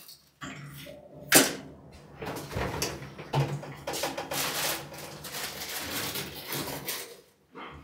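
Clicks and rustles of things being handled on and in a small refrigerator: one sharp click about a second and a half in, then a busy run of light clicks, knocks and rustling.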